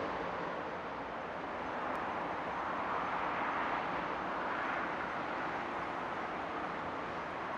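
Steady rushing outdoor background noise with no distinct events, swelling slightly in the middle.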